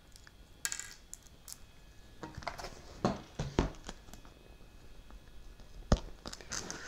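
Scattered small clicks, taps and knocks of hands handling a small screw and washer and picking up and turning an RC flying wing on a hard countertop, with one sharper knock about six seconds in.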